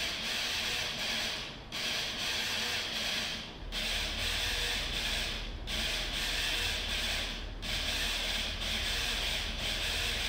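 Small DC motors on wooden logs running together, tugging at the wires of trip alarms and making a continuous noisy whirr that breaks off briefly about every two seconds in a steady rhythm. A low rumble comes in about a third of the way through.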